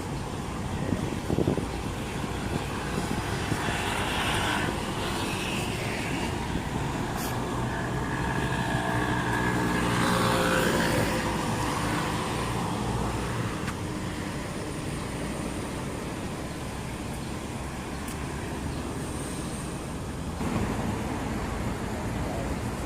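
Steady city traffic noise. In the middle a passing engine grows louder and then fades away.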